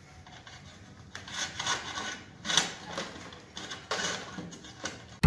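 Insulated electrical wires rustling and scraping against a wall-mounted distribution board as they are handled and pulled, in several irregular scrapes.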